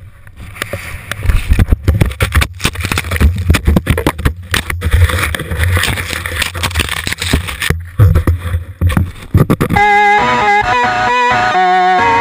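Wind buffeting a camera's microphone while skiing, with a low rumble and rough scraping and knocking of skis over snow. About ten seconds in, guitar music comes in.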